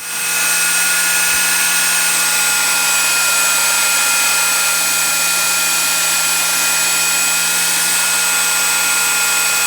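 Electric belt sander, clamped upside down as a table sander, switched on and running steadily: it comes up to speed within about half a second, then holds a constant whine over a broad hiss.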